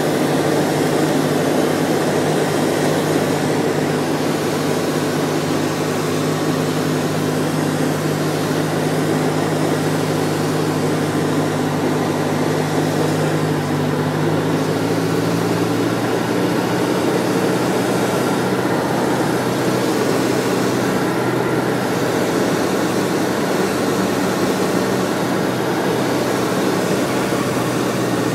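Robin DR400 light aircraft's piston engine and propeller droning steadily, heard inside the cabin on final approach to land. The engine's tone shifts about halfway through, then holds steady again.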